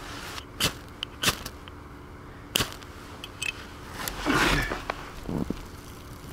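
Attempts to light damp tinder: a few sharp clicks a second or so apart, then a breathy rush about four seconds in and a shorter one after it as the smouldering tinder is blown on. The tinder is too wet to catch.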